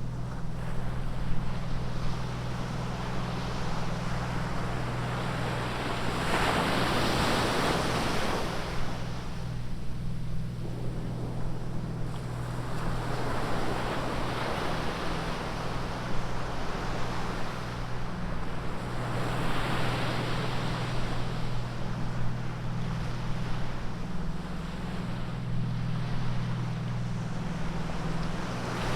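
Ocean surf on a beach, waves breaking and washing in as a rushing hiss that swells about every six to seven seconds, over a steady low rumble.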